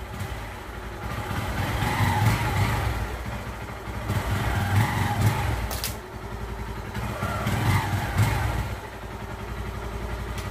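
Motorcycle engine running. The throttle is opened three times, the revs rising and falling each time.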